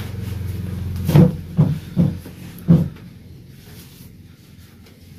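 Four dull thumps, about half a second apart, starting about a second in, from hands-on chiropractic work on a patient's lower back on a treatment table. A low steady hum comes before them.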